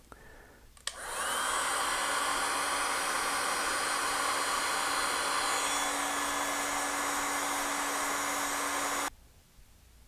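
Electric heat gun switched on with a click about a second in and blowing steadily with a motor hum as it shrinks heat-shrink tubing over a wire's crimped terminal, then switched off, cutting out abruptly about nine seconds in.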